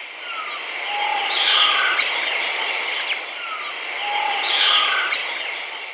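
Outdoor nature ambience: several birds calling over a steady hiss, swelling and fading. The same stretch of calls comes round again a little over three seconds later, as in a looped recording.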